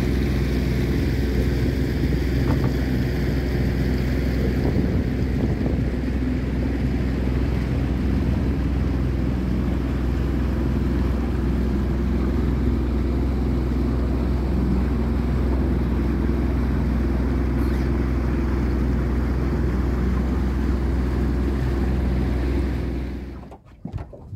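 Outboard motor running at a steady cruising speed on a moving boat, a constant engine hum with a rush of water and wind over it. It cuts off suddenly near the end.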